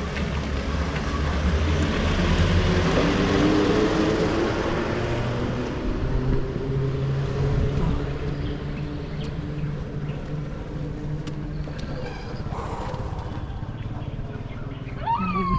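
A motor vehicle drives past close by. Its engine and tyre noise swell over the first few seconds, then fade away as it goes on up the road.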